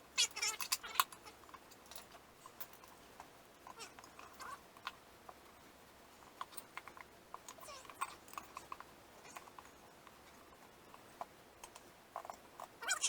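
A cat meowing, a short wavering call in the first second and another near the end, over scattered light clicks and taps of screwdrivers working a tire bead off a metal rim.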